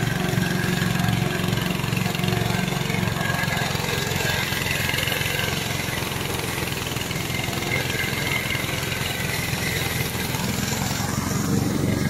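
Loncin 15 hp petrol engine of a remote-controlled tracked brush mower running steadily while it mows tall dry grass.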